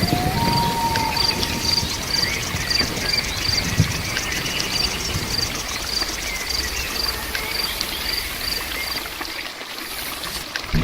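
Steady rain falling, with an insect chirping in a regular high pulse about three times a second through most of it.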